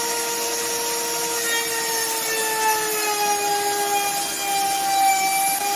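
Electric router running with a steady whine as it cuts a groove along a small strip of wood; its pitch sags a little from about two seconds in as the cut loads the motor.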